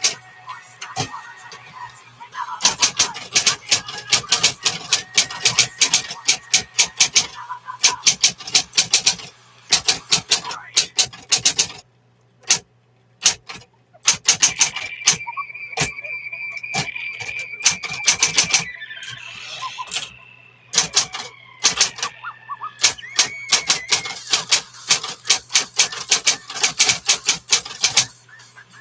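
Smith-Corona Coronet Electric 12 electric typewriter being typed on: fast runs of key strikes lasting several seconds each, broken by short pauses, with a brief near-silent stretch about halfway through, over a steady low hum.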